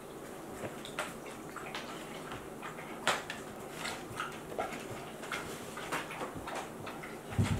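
Akita dogs lapping and licking at a metal water bowl: irregular wet clicks and slurps with light taps against the bowl, and a dull thump near the end.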